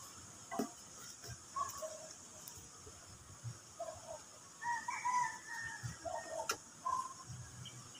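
A rooster crowing, with shorter chicken calls in between, the longest crow about five seconds in. Two sharp clicks are heard, one early and one late.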